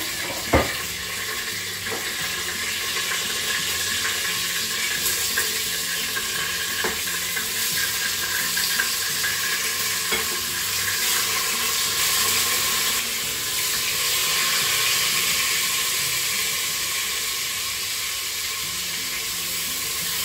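Pork loins sizzling steadily in hot oil in an electric pressure cooker's inner pot on sauté, browning. A few light clicks of metal tongs turning the meat.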